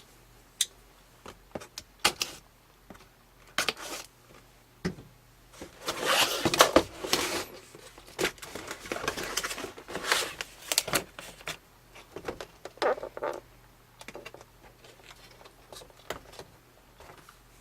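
Product packaging being handled and opened by hand: irregular rustles, scrapes and light clicks, with the busiest handling about six to eleven seconds in.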